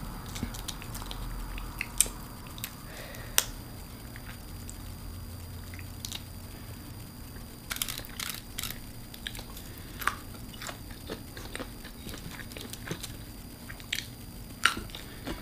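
A person eating seafood close to the microphone: chewing with scattered sharp clicks and cracks, a few of them louder, about two seconds in, three and a half seconds in, and near the end.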